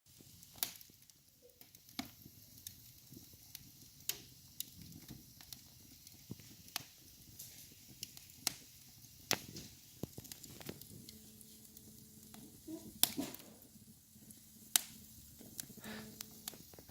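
Wood fire in a fireplace crackling, with irregular sharp pops and snaps every second or so over a soft hiss, the loudest pop late on. A faint steady low tone comes in during the second half.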